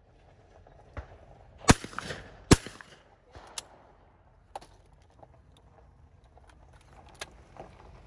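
Two shotgun shots about 0.8 s apart, one at each clay of a simultaneous pair, with a few lighter clicks and knocks afterwards.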